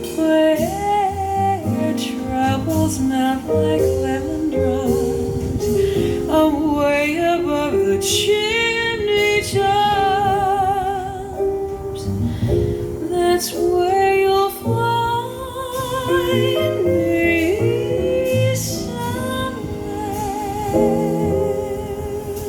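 Recorded music played back through a hi-fi system's JBL XL 300 loudspeakers: a female voice singing long notes with wide vibrato over instrumental accompaniment.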